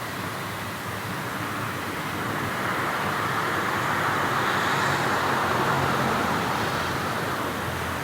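Urban street traffic noise, with a vehicle passing: the rush of tyres and engine swells to its loudest around the middle and eases off near the end.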